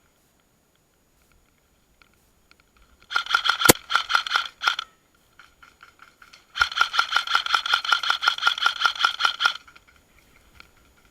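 Airsoft electric rifle (AEG) firing on full auto: a short burst about three seconds in, with one sharp crack in it, then a longer burst of about three seconds, rapid even shots with the gearbox whirring behind them.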